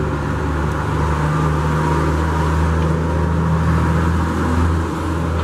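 Steady low mechanical hum with a rushing noise over it, from a motor running in the background.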